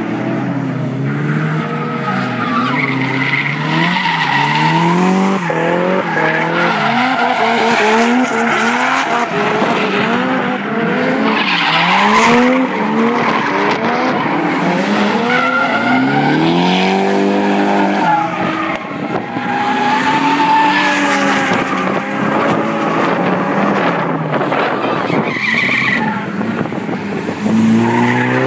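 Drift cars sliding through corners, their engines revving up and dropping back again and again as the drivers work the throttle, with tyres squealing and screeching under the slide.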